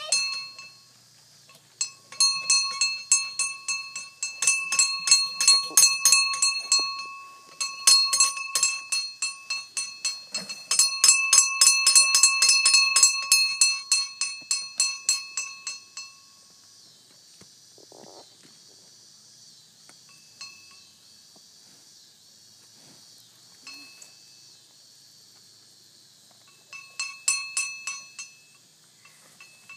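A bell rung rapidly by hand, many strikes a second, each ringing on with clear steady tones. It rings in long spells from about two seconds in until about sixteen seconds in, then again briefly near the end.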